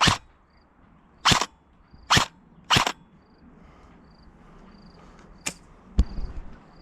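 Four airsoft gun shots in under three seconds, each a short sharp crack, followed near the end by a thin click and then a louder crack with a low thump.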